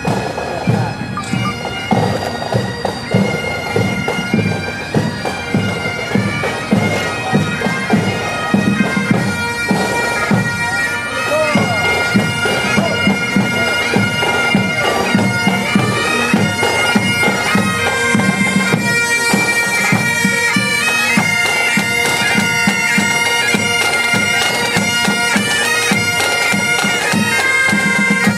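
Pipe band bagpipes playing a tune over their steady drones, getting louder about twelve seconds in.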